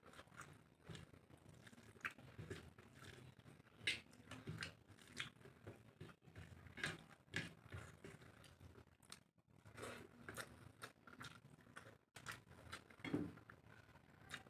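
Quiet chewing and wet mouth sounds of a person eating rice and curry by hand, with scattered soft clicks and taps of fingers mixing food on a plate.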